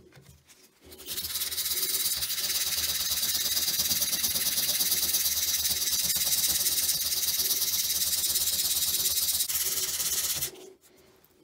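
Coarse 120-grit sandpaper rubbed by hand over the surface of a Bronzefill (bronze-filled PLA) 3D print, a steady rasping hiss that starts about a second in and stops near the end. The sanding is taking down the coarse layer lines and nozzle passes left on the raw print.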